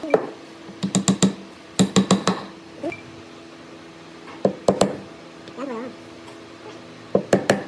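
Hard knocks on wood in four quick bursts of three to five strikes each, separated by short pauses.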